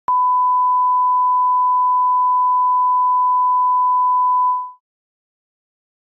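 Broadcast line-up test tone played with colour bars: a single steady, pure beep, loud and unchanging, that fades out and stops about three-quarters of the way through. It is the reference tone at the head of a programme tape, used for setting audio levels.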